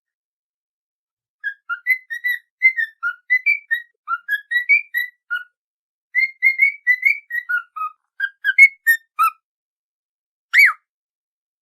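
A whistled melody of short, quick notes that jump up and down in pitch, a tune meant for a cockatiel to learn by repetition. A single loud rising-and-falling whistle follows near the end.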